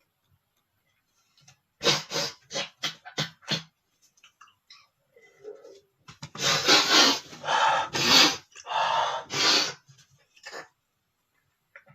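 A man's quick run of sniffs, then several loud, noisy breaths about a second apart, heavy breathing after a sneeze.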